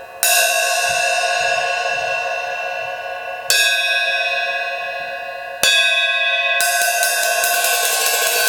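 Zildjian 13" A Custom Mastersound hi-hats struck open three times, each hit left to ring and slowly fade with a bright shimmer. About two-thirds of the way in, the playing turns to a continuous wash of quick strokes.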